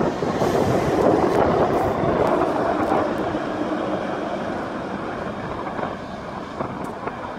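Heavy truck carrying a roll-off container passing close by, its engine and tyre noise loudest in the first few seconds, then fading as it pulls away.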